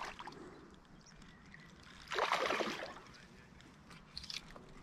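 A hooked trout splashing at the water's surface as it is played near the bank, with one loud splash about two seconds in and a smaller one near the end.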